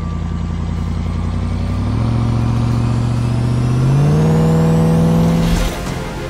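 Ram 1500 TRX's supercharged 6.2-litre V8 accelerating hard, its pitch climbing in two steps, about two and four seconds in, with a thin high whine rising alongside. It cuts off abruptly with a short rush of noise near the end.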